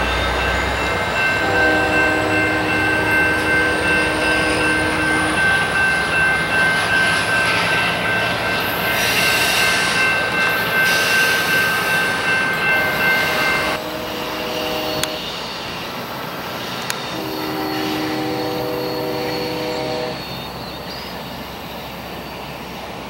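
Amtrak California bilevel passenger train running past with a high, steady squeal that cuts off suddenly about 14 seconds in. A locomotive air horn sounds a long chord-like blast near the start, then a short one and another long one later.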